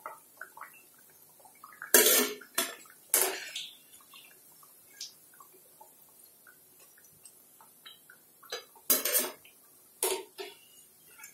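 Wire spider strainer clanking against the rim of a steel kadhai and a steel plate as fried alu vadi are lifted out of hot oil. A few sharp metallic knocks come in two clusters, about two to three seconds in and again near the end, with faint crackling of the frying oil between.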